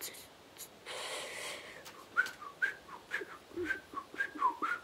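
A person whistling a tune softly in short notes, several sliding down in pitch, starting about two seconds in. A breathy exhale comes about a second in, and a few light clicks come from hands handling things.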